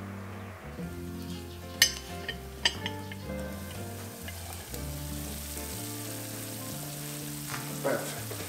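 Metal tongs clinking against hot coals and a cast-iron pot lid in a few sharp clicks, over a steady sizzling hiss, with a short scrape near the end, all under soft background music.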